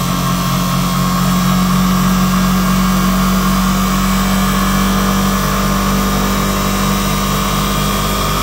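Distributor tester's drive motor spinning a Bosch ignition distributor at high speed, a steady hum with a higher whine above it, as it is run back up toward the rotor's rev limiter.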